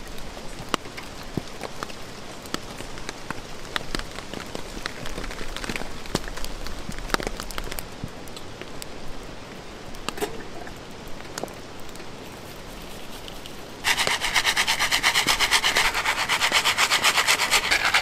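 Rain pattering with scattered sharp clicks and crackles. About 14 s in, a loud, fast, even rattling starts: a pan of popcorn kernels being shaken over the campfire.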